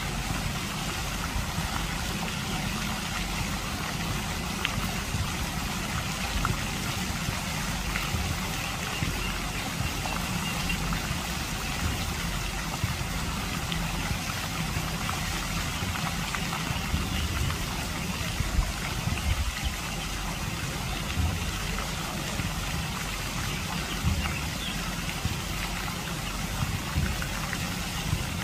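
Lake fountain jets spraying and splashing down onto the water, a steady rushing hiss, over a constant low rumble.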